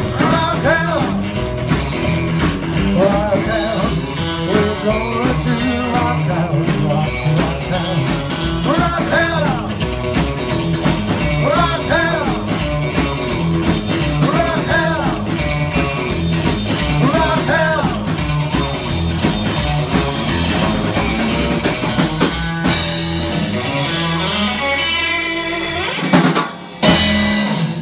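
Live rock and roll band playing: upright double bass, acoustic and electric guitars and a drum kit, with male singing. Near the end the song winds down, with a loud final hit about 26 seconds in.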